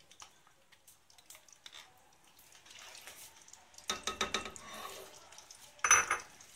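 A metal spoon clinking and scraping against cookware as ghee is added to the pan. Scattered light clicks lead to a clatter about four seconds in, and a sharp ringing clink near the end is the loudest.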